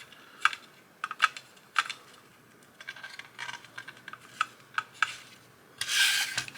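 Small hard parts being handled: a scattering of light clicks and rubbing as screws are turned in by hand into the eye unit's eyeball mounts, then a short clatter of small hard pieces near the end.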